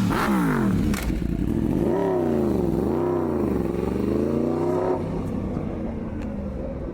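Motorcycle engine revved up and down several times, its pitch swooping low and high over the first five seconds, then settling to a quieter steady run. A single sharp click about a second in.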